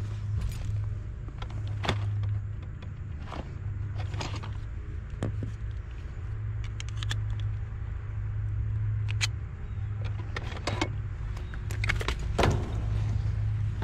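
Scattered light metal clicks and clinks as a replacement run capacitor, its sheet-metal mounting bracket and pliers are handled, over a steady low hum.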